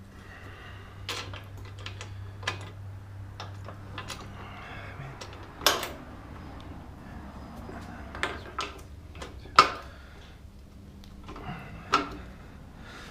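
Scattered clicks and knocks of tools and parts being handled, over a steady low hum. The loudest knocks come about six and ten seconds in.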